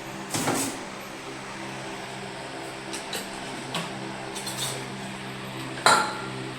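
Repaired cotton candy machine running with a steady electric hum, broken by a few sharp knocks and clicks, the loudest near the end.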